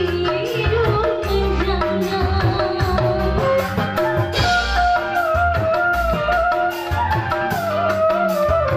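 Live dangdut band playing an instrumental passage: hand drums and a steady low drum beat under a melody line of held, stepping notes.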